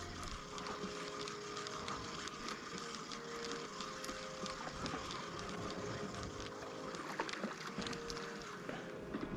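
Fishing reel being wound in against a small hooked flathead: light, irregular clicks over a steady hiss of wind and water.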